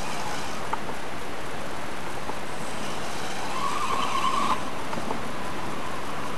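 Electric motor and gear whine of an RC rock crawler climbing a slope, swelling to a louder whine about three and a half seconds in and cutting off suddenly a second later, over a steady hiss.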